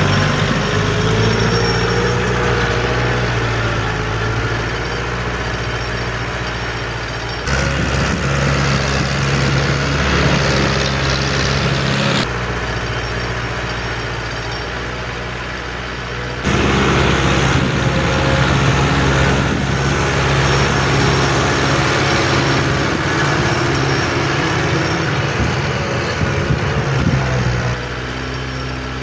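Lovol TH754 75-horsepower four-wheel-drive tractor's diesel engine running steadily under ploughing load. The sound changes abruptly in level several times.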